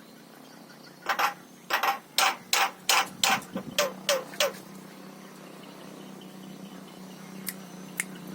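Javan myna giving a quick series of about ten harsh, rasping calls over three or four seconds, the last few ending in a short pitched note.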